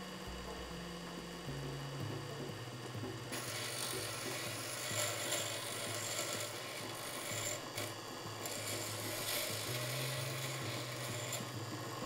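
Bench grinder grinding a small piece of steel, a hand-made key blank held against the wheel. There is a steady rasping hiss that starts about three seconds in and stops shortly before the end.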